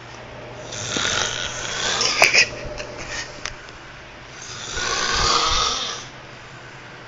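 Snoring: two long, noisy, rasping breaths. The first has a few sharp clicks and splutters partway through, and the second carries a deep, rattling rumble.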